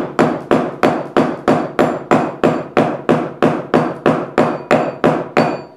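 Rawhide mallet striking a silver ring on a steel ring mandrel in even blows, about three a second, with a faint metallic ring after each; the blows stop near the end. The hammering stretches the soldered silver band up in size and trues it round.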